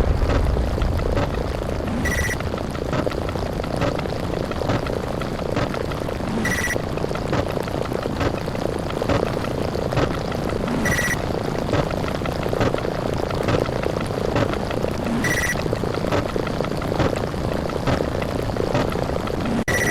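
A continuous dense rumble of sound effects triggered so fast that they blur into one noise, with a short high beep about every four and a half seconds, five times in all.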